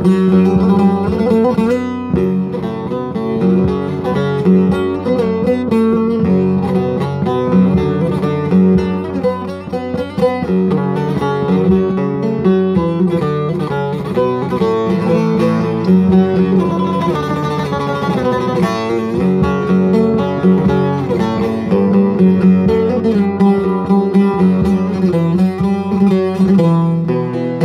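Bağlama (Turkish long-necked saz) being played, picking out an arabesk melody in a steady stream of quick plucked notes.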